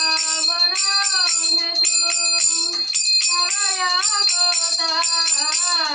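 Devotional singing, a voice holding long notes that glide up and down, over a small hand bell ringing continuously, as during an aarti worship.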